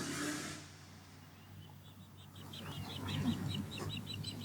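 Osprey calling: a fast run of short, high chirps, about five a second, starting about two seconds in. A rush of noise fades out in the first second over a low steady hum.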